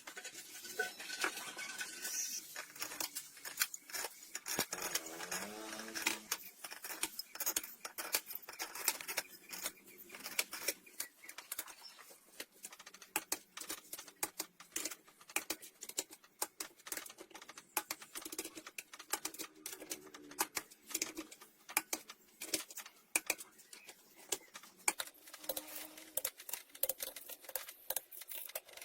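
Irregular light clicks and taps, like small tools and metal engine parts being handled, with no steady machine running.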